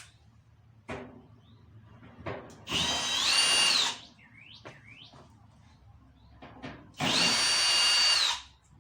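Power drill running in two short bursts of about a second each, its whine rising as it spins up and falling as it stops, driving screws out of the dryer's panel. Small clicks and knocks of handling come between the bursts.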